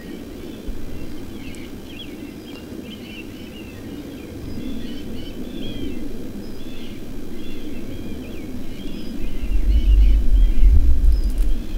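Small songbirds chirping and singing in a field, many short calls throughout over a steady outdoor hiss. About nine seconds in, a loud low rumble comes in and covers the lower end.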